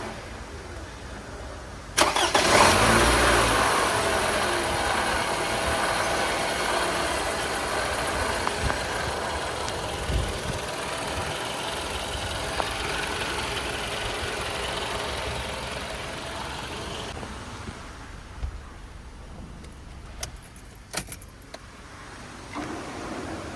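Toyota Camry's 2AR-FE four-cylinder engine starting about two seconds in, then running at idle, its level easing over the following seconds and dropping further past the middle. The engine has a failing water pump, the source of its front-side noise. A few sharp clicks come near the end.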